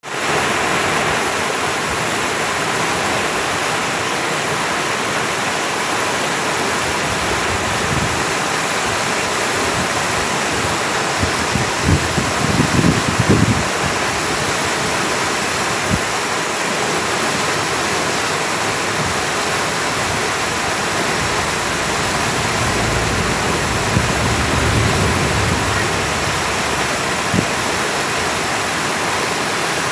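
Whitewater rushing and churning as the river pours over a small dam, a loud steady rush, with a few brief low rumbles about twelve seconds in and again later.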